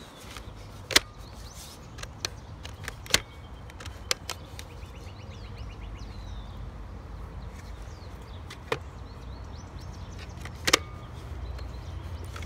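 Sharp plastic clicks and knocks, about seven of them spread unevenly, as a clear plastic gel blaster toy is handled and turned over, with a brief faint run of rapid ticks around the middle. A low steady rumble sits beneath.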